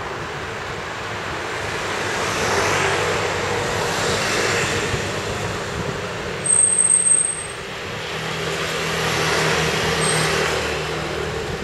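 Road traffic: two vehicles pass, each swelling up and fading, the second with a low engine note. About six and a half seconds in there is a brief high squeal, like a brake.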